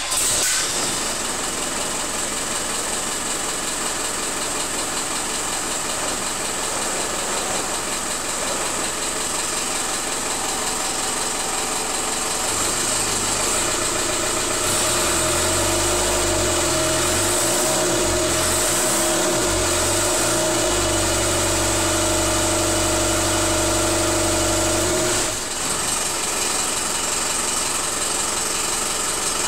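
Land Rover diesel engine running just after catching on its first start in at least four years, fed from a temporary tub of diesel. From about halfway through its note grows deeper and louder, then drops back to the earlier running sound a few seconds before the end.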